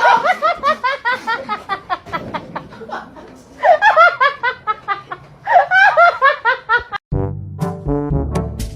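High-pitched laughing in quick runs of short, bending notes, in three bouts. About seven seconds in it cuts off and brass music starts.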